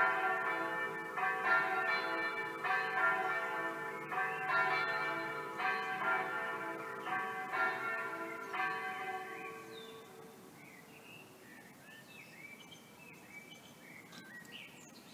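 Electronic church bells, recorded bell sounds played from the tower's loudspeakers, ringing a swinging peal with strokes about once a second. The peal dies away about ten seconds in, and birds chirp after it.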